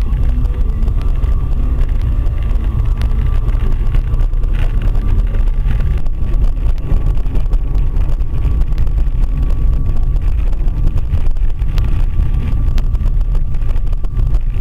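Steady low rumble of a car driving on a rough road, heard from a dashcam inside the cabin, with a faint steady high tone above it.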